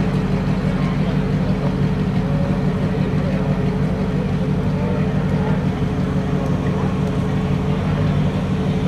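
2009 Audi R8's 4.2-litre V8 idling steadily through an aftermarket GT3 centre-exit exhaust: an even, deep drone with no revs.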